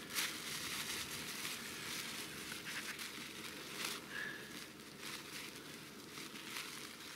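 Plastic bag crinkling and rustling while loose snow is scooped by hand into it, with soft crunching of snow.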